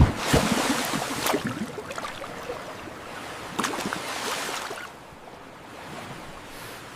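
Water splashing and sloshing: a noisy rush with scattered sharp splashes that dies down over the last couple of seconds.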